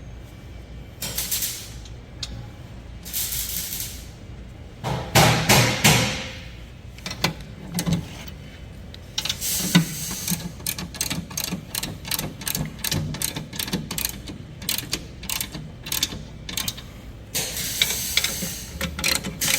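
Metalworking noise from stove fabrication: a few short hissing bursts, then a long run of sharp metallic clicks and taps, about four a second, with more hissing near the end.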